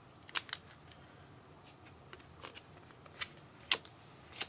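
Trading cards being handled and sorted: about six sharp, irregular clicks and snaps, the loudest near the start and about three and a half seconds in.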